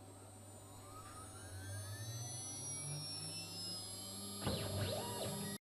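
1.5 kW VFD-driven CNC router spindle spinning up to 12,000 RPM: a whine rising steadily in pitch for about three seconds, then levelling off. In the last second a louder, rougher cutting noise starts as the two-flute HSS end mill begins milling AlMg3 aluminium, and the sound cuts off abruptly.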